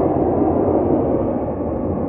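Steady jet noise from a formation of Alpha Jet aerobatic aircraft flying the display, a continuous rushing sound with no distinct tones.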